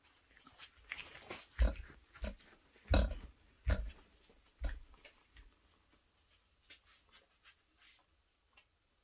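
A heavy backpack being handled and shouldered: about five short thumps with fabric and strap rustling in the first half, then only a few faint small sounds as it settles on the back.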